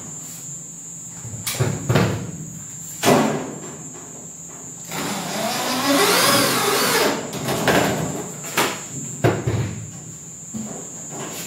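Corded electric drill running for about two and a half seconds against the back of a wall-mounted kitchen cabinet, its motor pitch wavering. Several sharp knocks come before and after it.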